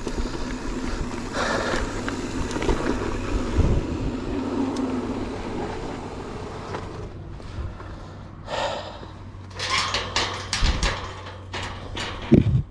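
Decathlon Stilus electric mountain bike ridden along a rough, overgrown trail: steady tyre and trail noise that quietens after about seven seconds, then a run of short, sharp noises and a few low thumps near the end.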